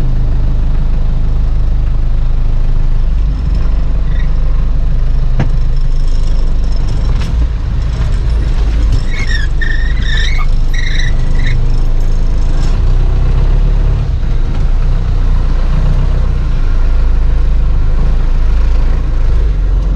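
Off-road 4x4's engine running at low revs with a steady low drone, heard from inside the cabin. A brief high-pitched sound comes about halfway through.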